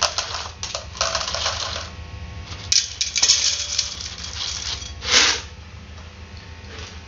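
Dry cat kibble rattling as it is poured from a plastic jar into cat bowls, including a stainless steel one, in a few pours. A brief louder rush comes about five seconds in, and it is quieter near the end.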